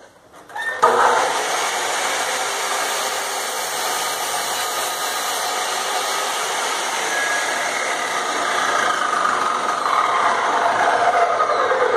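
Bosch GCO 2000 cut-off saw's 2000 W electric motor switched on about a second in, then running steadily as its blade is pulled down into a wooden board.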